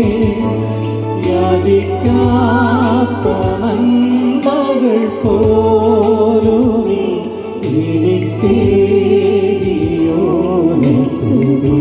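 Live Malayalam Christian worship song, with a male and a female singer on microphones over electronic keyboard accompaniment that carries a bass line and a steady beat.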